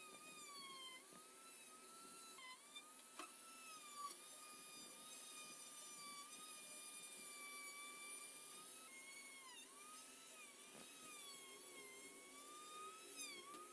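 Handheld rotary tool running at high speed with a faint, steady whine as its bit grinds sheet steel. The pitch dips repeatedly and recovers as the bit bears down on the metal and the motor slows under load.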